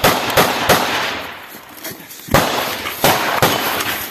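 Small-arms gunfire in a firefight: three sharp shots in quick succession, a lull of about a second, then three more shots, each with an echoing tail.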